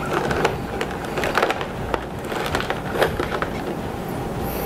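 Clear plastic blister-tray packaging crackling and clicking as an action figure is worked loose and lifted out of it: a string of short, irregular sharp clicks.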